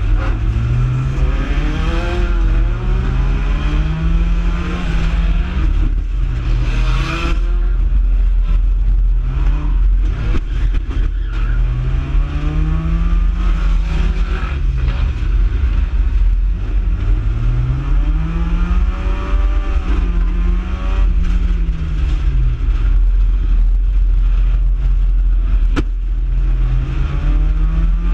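Mini figure-8 race car's engine heard from inside the cockpit, revving up and easing off over and over as the car accelerates and brakes around the track, over a heavy low rumble of the car shaking. A single sharp click about twenty-six seconds in.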